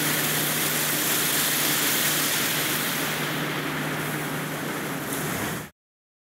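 High-pressure water jet spraying the concrete walls inside a water tower, rinsing off iron and manganese deposits: a steady hiss over a low machine hum. It cuts off suddenly near the end.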